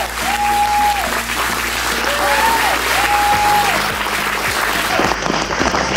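Audience applauding, with music and held whistle-like tones underneath; the clapping thins out about five seconds in.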